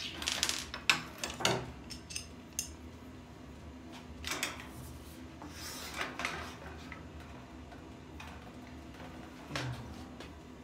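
Light metal clinks and knocks from the steel baskets and frame of an IKEA RÅSKOG trolley being handled and fitted together: a quick cluster in the first couple of seconds, then a few single knocks spaced out after.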